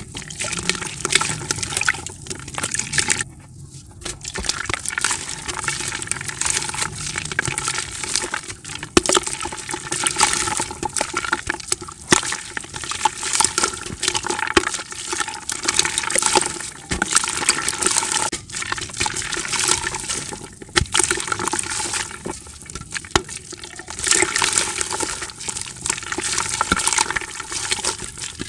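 Dry dirt crumbled and broken by hand, chunks snapped off a slab and crushed, with crumbs and powder falling into a bucket: a dense, continuous crackle with many small snaps.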